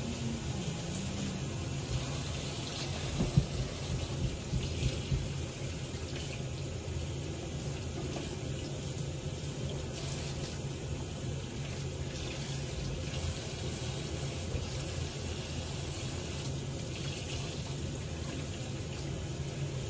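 Kitchen faucet running steadily into a stainless steel sink as raw steak is rinsed under the stream by hand, with a few louder knocks about three to five seconds in.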